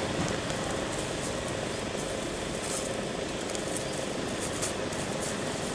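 Steady background hum and hiss with a faint continuous tone, and a few soft rustles of dry leaves as young macaques tussle on the leaf litter.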